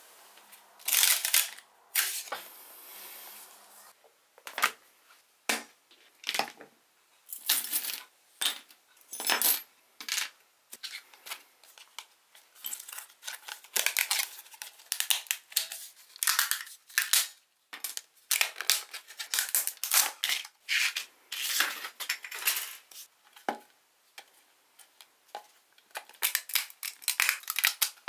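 Hard 3D-printed plastic clicking, scraping and cracking as a printed kalimba body is handled and a hand tool works inside its sound hole, in many short irregular bursts.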